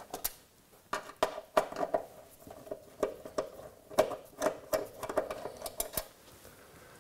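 Hand screwdriver turning out the screws that fix a blow-down pump to a sheet-metal tray: a run of irregular metallic clicks and scrapes that dies away near the end.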